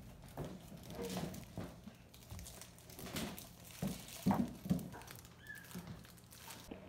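Light rustling and crinkling with a few soft knocks, loudest about four and a half seconds in, as balloons and their curling ribbons are brushed and handled.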